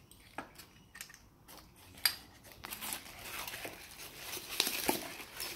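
Plastic wrapping crinkling as chrome-and-metal microscope stand parts are handled in a foam packing tray, with a few light clicks and knocks of metal early on; the crinkling grows denser and louder from about halfway through.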